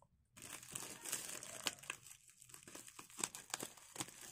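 Plastic parcel wrapping being handled and pulled open, crinkling with irregular sharp crackles, starting about a third of a second in.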